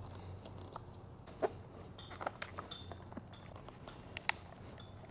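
Faint scattered plastic clicks and rubbing from an aftermarket ECU and its wiring connectors being handled and pressed into the holder under a dirt bike's seat, the clearest clicks about a second and a half in and again near the end, over a steady low hum.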